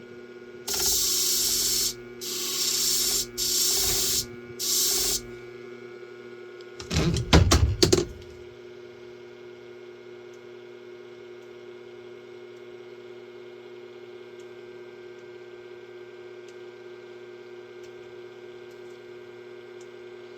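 Hair shear blade held in a clamp and ground against a spinning sharpening disc in four passes of about a second each, each a loud hiss, over the steady hum of the sharpening machine's motor. A few loud clunks follow, then only the motor hum.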